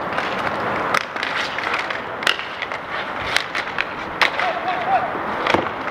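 Inline hockey skate wheels rolling on a rink surface, with scattered sharp clacks of sticks and puck.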